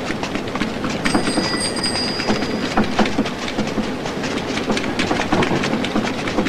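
Continuous dense clattering, many small irregular knocks and rattles over a low rumble, like street background clatter of wheels and footsteps.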